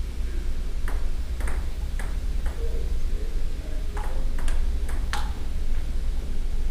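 Table tennis rally: the celluloid ball clicking off the paddles and the table, a run of hits about half a second apart a second in, then another quick run of hits around four to five seconds in, over a steady low hum.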